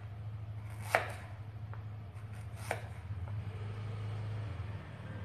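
Kitchen knife slicing fresh ginger root on a plastic cutting board: a few sharp knocks of the blade striking the board, the loudest about a second in and another near three seconds, over a steady low hum.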